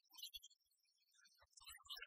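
Near silence, with only faint scattered specks of sound.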